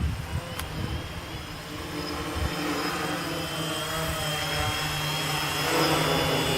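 Gaui 500X quadcopter's electric motors and propellers humming in several steady pitches, getting louder over the last few seconds. Gusts of wind buffet the microphone, mostly in the first couple of seconds.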